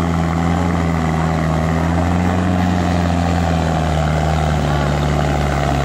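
Mahindra Arjun Ultra 605 tractor's diesel engine running steadily as it hauls two trailers loaded with sugar cane, its pitch dipping slightly about halfway through.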